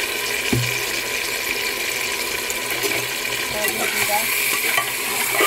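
Chunks of raw meat sizzling steadily in hot oil in a pressure cooker, with a spoon stirring and scraping against the metal pot toward the end, a few clicks of the spoon.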